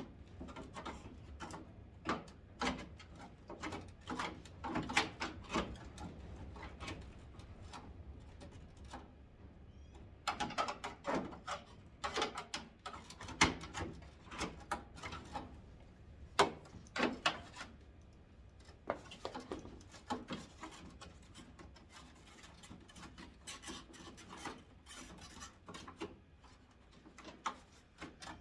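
Irregular scraping, rubbing and clicking as the old clipped-on headlight trim of a 1991 Ford Ranger is pried and worked loose by hand, with sharp knocks about halfway through.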